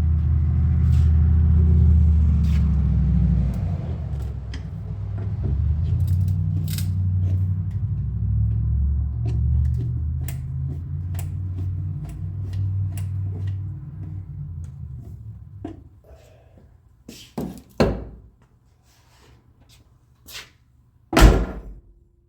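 A low rumbling hum fades out over the first fifteen seconds or so, with light clicks over it. Then a 1957 car door is shut against its freshly tightened striker: two thumps about 17 and 18 seconds in, a small knock, and a loud slam near the end as the latch catches on a striker set too far in.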